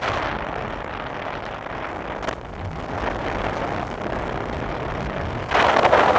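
Wind rushing over the microphone of a moving vehicle on a ride, with road noise beneath. It gets suddenly louder near the end.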